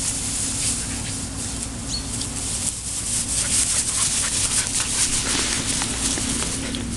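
Dry grass rustling and crackling as standard schnauzer puppies run through it, with many quick crackles that grow busier from about three seconds in, over a steady low hum.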